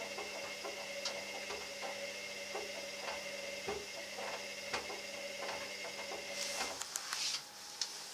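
Candy washer-dryer on its drying cycle: a steady motor and fan hum with soft knocks and clicks from the laundry tumbling in the drum, about two or three a second. Near the end the hum stops, followed by a few sharp clicks and a brief hiss.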